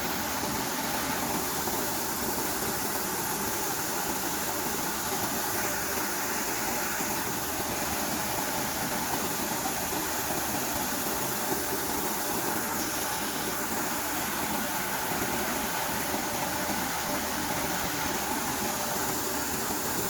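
Maize-shelling machine running steadily, a constant mechanical din with a faint steady hum.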